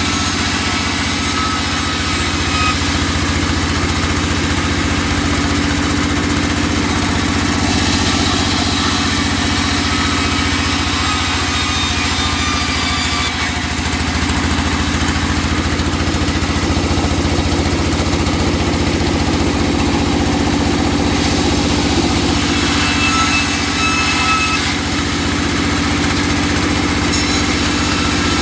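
Sawmill machinery sawing teak: a steady, loud motor drone with a hiss above it that grows and fades a few times.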